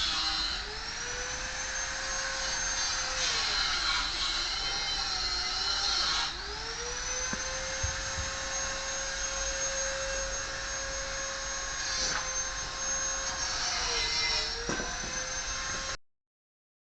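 A high-speed electric motor whining. Its pitch sags several times, as if under load, then climbs back each time, and the sound stops abruptly near the end.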